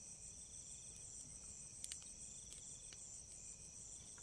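Faint night chorus of crickets and other insects, a steady high-pitched chirring, with a few faint clicks, the loudest about two seconds in.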